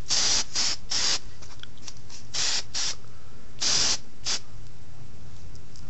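Aerosol spray paint can sprayed in short bursts: seven brief hisses, three in quick succession at the start, two more about halfway and two near the end, the longest lasting under half a second.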